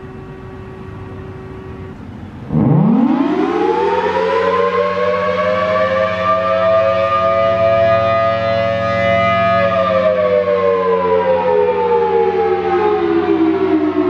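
Federal Signal Thunderbolt 1000T rotating outdoor warning siren sounding the attack signal. About two and a half seconds in it comes on loud, its two-tone wail rising quickly to a peak, holding for several seconds, then sliding slowly down, over a low steady hum.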